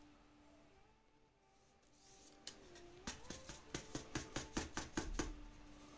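Faint, quick run of small clicks and taps from handling trading cards and their plastic sleeves and holders, starting about halfway in and stopping shortly before the end.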